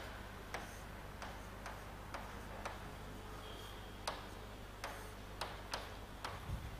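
Light, sharp ticks at an uneven rate of roughly two a second, with a pause of over a second midway, over a faint steady low hum.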